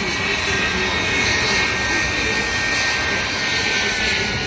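Distant jet engines of Air Force One, a Boeing 747, running as the plane moves on the ground: a steady rush with a high whine that slowly drops in pitch during the second half.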